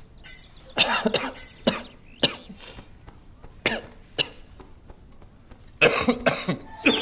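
A man coughing in a series of short coughs, some close together in fits, with pauses between.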